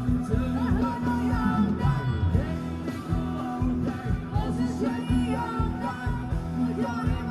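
Live band playing Thai ramwong dance music, with a singer over a steady, fast drum beat and bass.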